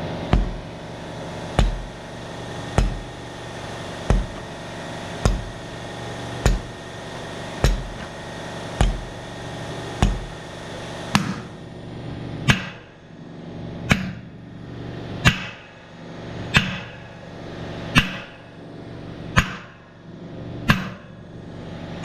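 Hammer blows on a big monster-truck tire at the rim of its split-ring wheel, struck about every second and a quarter, some seventeen times. A steady machine hum runs underneath, with a hiss that stops about halfway through.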